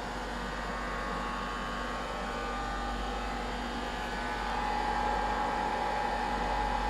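Hot-air blower and cooling fans of a ZM-R5860C BGA rework station running steadily while it heats a chip on a decoder board. A steady whine grows louder about four and a half seconds in.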